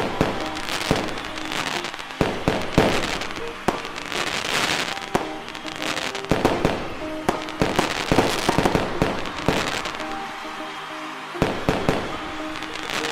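Fireworks going off in a dense barrage of sharp bangs and crackling, with music playing underneath. The bursts thin out briefly about ten seconds in, then pick up again.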